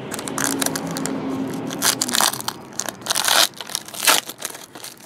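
Foil wrapper of a trading-card pack crinkling and crackling in the hands as it is torn open, in a quick irregular run of sharp crackles.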